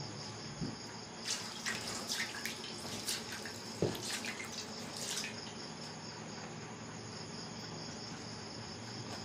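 Crickets chirring steadily in the background, with crackly rustling of stiff banana leaves being handled over a steel basin for a few seconds, and one soft knock about four seconds in.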